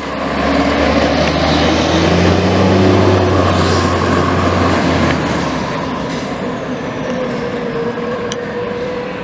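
Diesel engine of a rear-mount aerial ladder fire truck pulling away close by and accelerating off down the street. There is a heavy low rumble that eases off after about five and a half seconds as the truck moves away.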